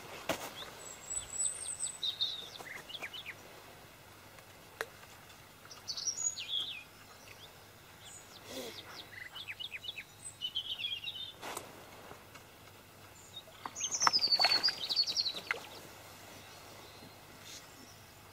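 Small birds singing in short, high chirping phrases every few seconds, the loudest a falling trilled phrase a little past the middle, with a few faint clicks between over a quiet outdoor background.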